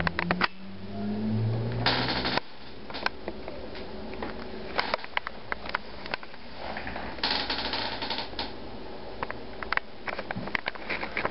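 Scattered light clicks and short rustling bursts from a handheld camera being moved and handled; a low hum cuts off about two seconds in.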